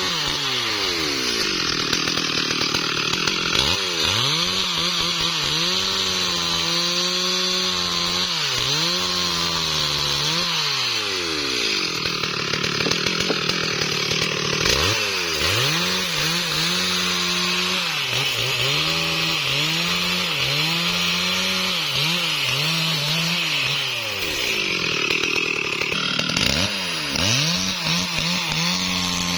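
STIHL MS 382 two-stroke chainsaw cutting into a tree trunk at full throttle, its engine speed repeatedly dropping under the load of the cut and picking back up.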